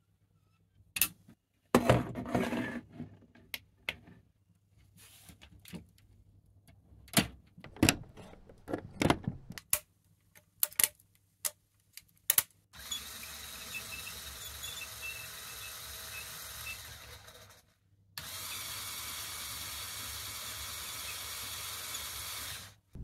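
LEGO Technic plastic parts being handled and clicked together, a string of sharp clicks and rustles. Then the crane's LEGO electric motor and plastic gearing run steadily twice, about five seconds each with a short pause between, with a mechanical whine.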